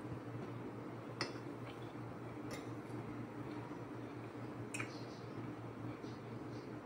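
Fork and spoon clinking a few times against ceramic plates while a person chews food, over a steady low hum.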